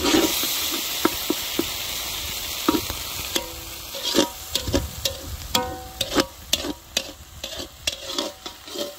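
Spice paste (masala) sizzling in oil in a metal karahi while a slotted metal spatula stirs it, scraping and knocking against the pan. From about three and a half seconds in the strokes come thick and sharp, several leaving a brief metallic ring.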